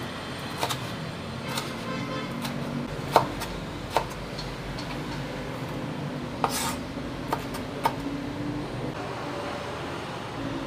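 Cleaver chopping tomatoes on a wooden cutting board: irregular sharp knocks of the blade striking the board, the loudest about three seconds in, over a steady background hum.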